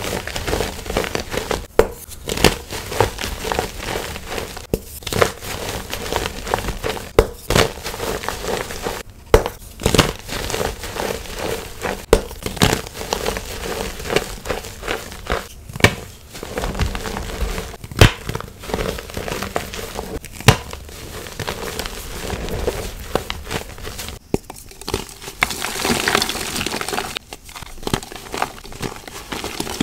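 Blocks of gym chalk crushed and crumbled between bare hands: a dense, irregular crunching broken by many sharp snaps.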